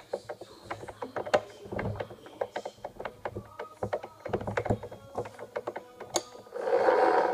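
Chuck key turning in a drill's keyed chuck, with metal gear teeth clicking and rattling irregularly. A brief louder rushing burst comes near the end.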